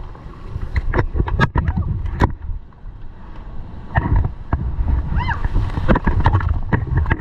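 Inflatable raft running a white-water rapid: rushing, splashing water with many sharp slaps and knocks, under a low rumble. A short voice call rings out about five seconds in.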